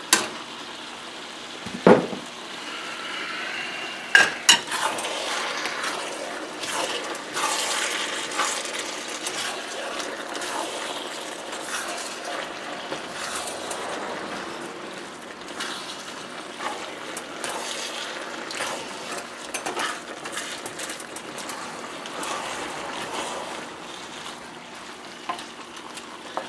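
Stir-fry of beef, noodles and vegetables sizzling in a hot steel wok, with a wooden spoon scraping and clacking against the metal while the just-added sauce cooks in. A single knock about two seconds in.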